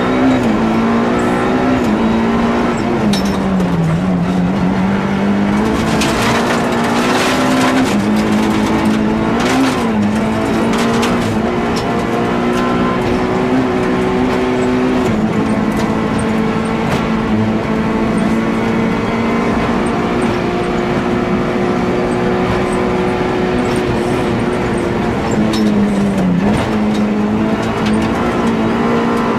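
Onboard sound of a Nissan Almera GTi rally car's SR20DE four-cylinder engine running hard at a mostly steady pitch. The pitch dips briefly about four seconds in, near ten seconds, and again near the end. Bursts of hissing, rattling noise come between about six and ten seconds in.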